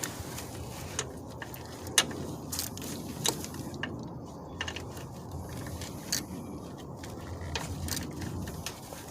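Hands working on a car's wiring harness under the hood: a steady rustle of handling with scattered sharp clicks and rattles of plastic and metal parts, the loudest about two seconds in.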